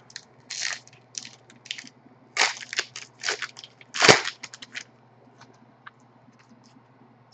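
Crinkling rustles of a trading card pack's wrapper being opened and the cards handled, in short irregular bursts, the loudest about four seconds in.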